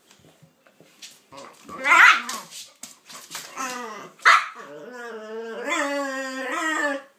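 Dogs (a pit bull and a King Charles spaniel) vocalizing in play: sharp barks about two seconds and four seconds in, then a drawn-out, wavering pitched call that runs on until just before the end.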